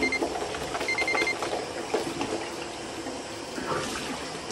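Water running from a bathroom tap into a sink, a steady rushing with small splashes as hands wash. Near the start, two short bursts of high electronic beeping, like an alarm clock, one ending just after the start and the other about a second in.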